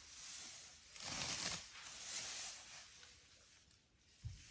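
African elephant bull chewing a mouthful of grass: uneven crunching, tearing and rustling, strongest about a second in and fading later. A short, dull, low thump near the end.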